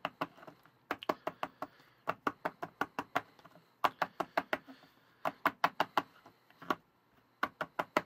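A plastic chocolate mold filled with melted chocolate is tapped repeatedly against a tabletop to settle the chocolate and knock out air bubbles. The sharp knocks come in quick runs of about five or six a second, with short pauses between the runs.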